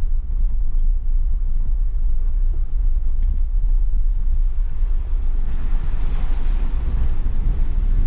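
Heavy wind buffeting on the microphone, a constant deep rumble, with a rushing, surf-like hiss swelling about five and a half seconds in.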